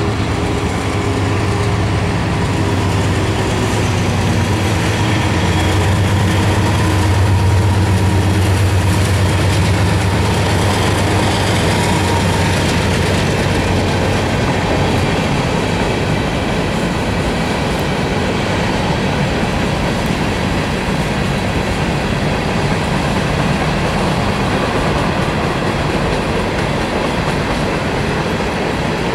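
Norfolk Southern freight train passing: the diesel locomotives' engines drone steadily for about the first half, then fade into the rumble of covered hoppers and tank cars rolling by on the rails.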